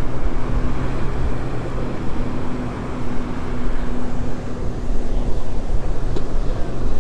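Strong wind buffeting the camera microphone in a steady low rumble, with a faint steady hum underneath.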